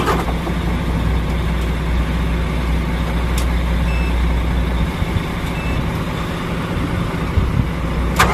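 Low, steady truck engine hum that thins out about five seconds in, with two short high beeps in between and a sudden loud sound right at the end as the flat-batteried truck is cranked on jump leads.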